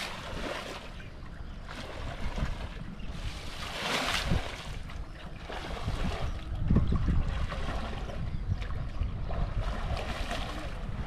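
Water swishing and sloshing in a few broad surges, about 4 and 7 seconds in and again near the end, over a steady low rumble of wind on the microphone.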